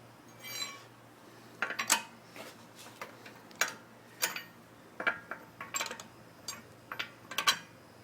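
Infiniti G35 rear axle clicking: irregular sharp metallic clicks and clinks, some in quick clusters, the loudest about two seconds in and near the end.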